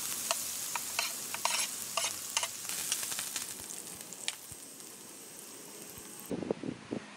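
Squid in its ink sauce sizzling in a small camping pan on a gas stove: a steady hiss with scattered crackling pops that slowly dies down, then a few knocks of the spatula against the pan near the end.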